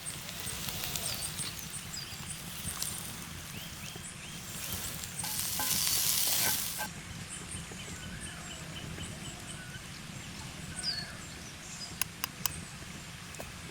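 Food frying with a sizzling hiss that swells for about a second and a half midway, over scattered bird chirps, with a few sharp clicks near the end.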